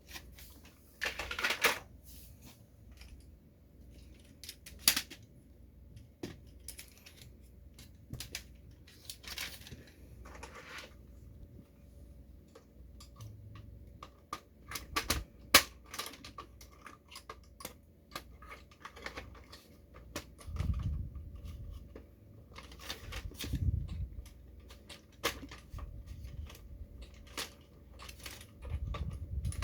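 Irregular clicks, taps and brief rustles of a plastic toy snow groomer model being handled, with a few dull low thumps in the second half.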